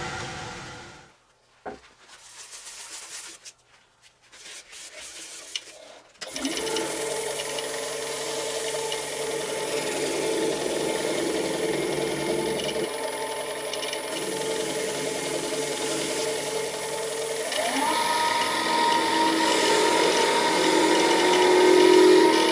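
Wood lathe motor starting suddenly after a few quiet seconds with small knocks, then running with a steady whine while something rubs against the spinning wood. About eighteen seconds in the motor speeds up, its whine rising in pitch and then holding higher.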